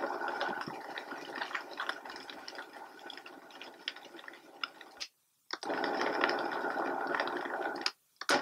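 High-speed blender running on its lowest setting, shredding rehydrated soy curls, with a patter of small clicks over the motor. It gets quieter over the first few seconds, then cuts out and starts again twice.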